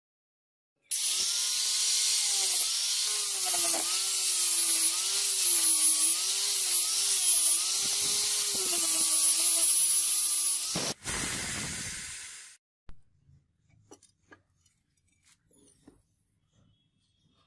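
A power tool polishing the metal cleaver, starting about a second in. Its motor whine wavers up and down as it is pressed against the work, then cuts off, followed by a shorter burst of noise and a few light taps.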